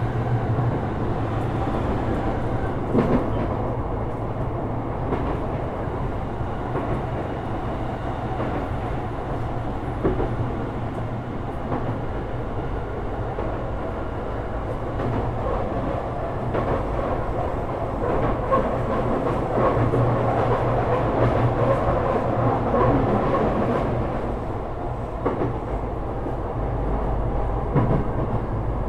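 Sotetsu 12000 series electric train running at speed, heard from inside the car: a steady rumble of wheels on rail, with a sharp click over a rail joint every few seconds.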